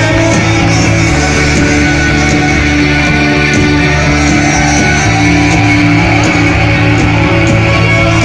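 Live rock band playing loud, with guitars to the fore and drums keeping a steady beat.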